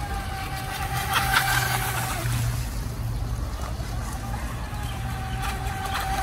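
Radio-controlled speedboat's motor whining at a steady high pitch at speed. The pitch drops away as it eases off about two seconds in, then comes back up to speed near the end, over a steady low rumble.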